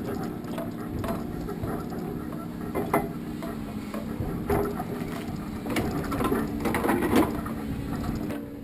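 Machinery humming steadily under irregular metallic clicks and clanks, consistent with steel chains and ratchet straps being fastened over a log load. The clanks bunch up near the end.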